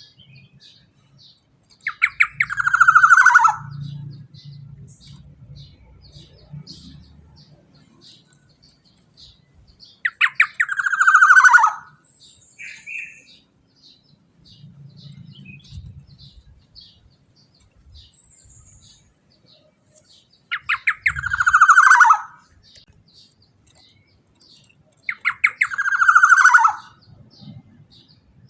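Black-naped oriole (kepodang emas) giving four loud, harsh, falling nasal calls, each about a second and a half long, spaced several seconds apart. Faint quick high chirps tick steadily between the calls.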